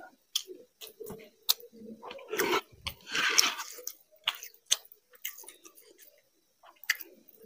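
Chewing and wet mouth smacks of a man eating fried rice with chicken curry by hand, a string of short sharp clicks with two louder, longer bursts about two and three seconds in.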